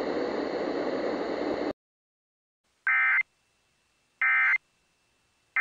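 Emergency Alert System End of Message signal: three short bursts of screeching two-tone digital data, about a second and a half apart, marking the end of the alert. They follow a steady hiss that cuts off abruptly after about a second and a half.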